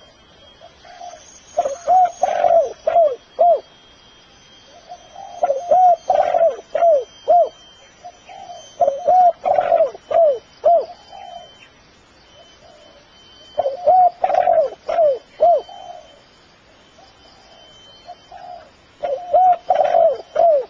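Spotted dove (terkukur) cooing: five phrases, each a quick run of several short coos, repeating about every four seconds.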